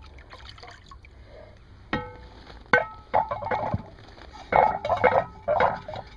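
Cast iron skillet knocking twice with a short metallic ring, about two and three seconds in, as it is handled out of the water; then water sloshing and running off and a gloved hand rubbing across the wet, rusty pan.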